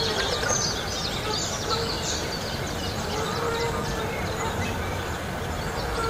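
Outdoor ambience: steady low background noise, with small birds chirping faintly, mostly in the first half.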